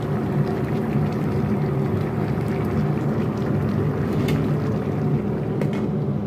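A steady low mechanical hum with a constant drone, from the kitchen's running equipment, with a couple of light clicks near the end.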